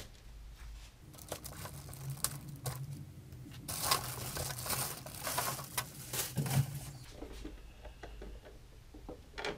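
Clear plastic bag crinkling and rustling in irregular bursts as it is pulled off a toy RC truck, loudest about halfway through, with a few light clicks and knocks.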